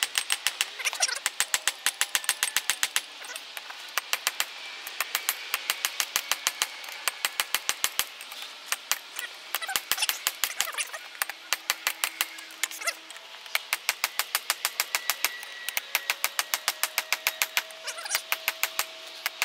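Hand hammer striking red-hot leaf-spring steel on a steel anvil: rapid blows at about four a second, in runs broken by short pauses, as the bar is drawn out longer and thinner.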